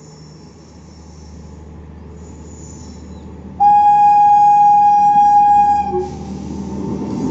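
WAP-7 electric locomotive approaching with a slowly growing rumble. About three and a half seconds in it sounds its horn: one loud, single-note blast of a little over two seconds. The rumble of the locomotive and coaches passing is louder after the horn.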